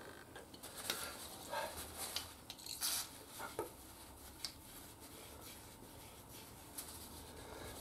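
Faint clicks and rubbing of small metal gear-shifter linkage parts being handled and taken off, a few short knocks in the first half, then quieter.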